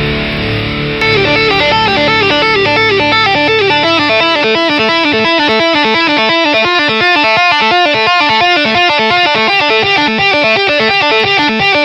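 Death metal song passage led by electric guitar. About a second in, the guitar begins fast runs of notes stepping up and down, and rapid drumming joins underneath from about four seconds in.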